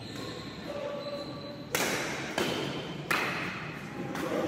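Badminton rackets striking a shuttlecock in a quick rally: four sharp, echoing smacks, starting a little under two seconds in.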